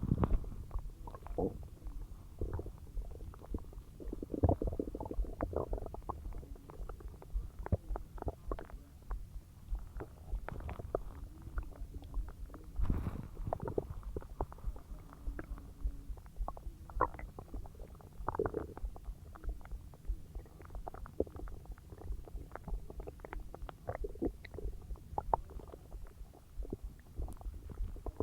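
Human stomach and intestines gurgling and rumbling as a large meal digests: a steady run of short, irregular gurgles and pops, with louder rumbling spells about four, thirteen and eighteen seconds in.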